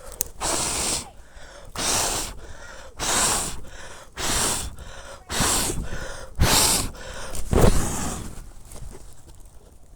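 A person blowing hard on a campfire to get the kindling burning: about eight long breaths, one roughly every second.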